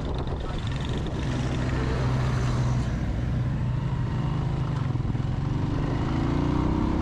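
Motorcycle engine running steadily as the bike rides along the road, with wind buffeting the microphone; the engine note climbs a little near the end.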